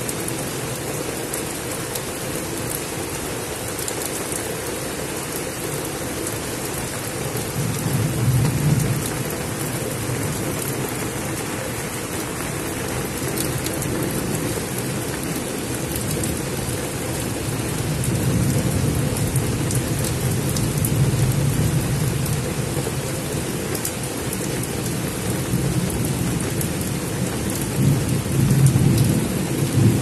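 Heavy rain falling steadily on dense tropical foliage, an even hiss. Low rumbles of thunder swell about eight seconds in, again for a few seconds around twenty seconds, and once more near the end.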